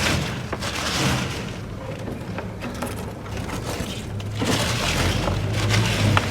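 Scraping and rustling as a rabbit cage is cleaned out, in noisy swishes, with a low rumble coming in about halfway through.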